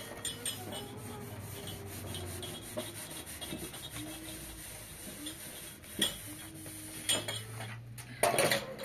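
A metal tray being scrubbed by hand in a plastic basin of water: steady rubbing with short clicks, and a louder clatter near the end.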